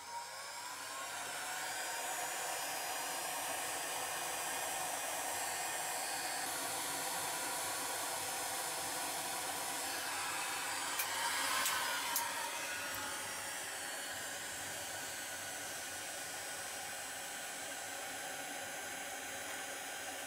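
Bosch PHG 600-3 electric heat gun running, its fan blowing steadily after building up over the first couple of seconds. A few light clicks come about eleven and twelve seconds in.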